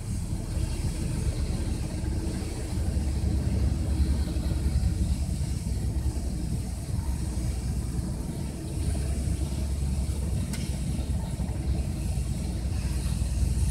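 Helicopters running on and over a helipad: a steady low rumble of rotors and turbine engines.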